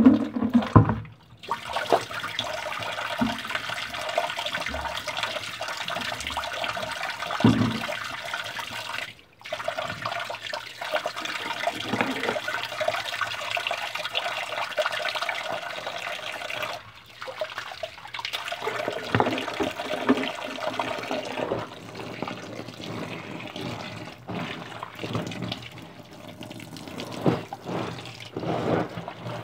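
Tap water running into a sink or tub while clothes are washed, the flow breaking off briefly a few times, with occasional knocks.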